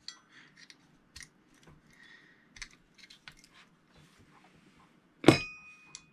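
Small metal parts of a Mitchell 300 spinning reel's rotor assembly clicking and clinking as they are handled and fitted by hand. About five seconds in there is one loud metallic clink that rings briefly.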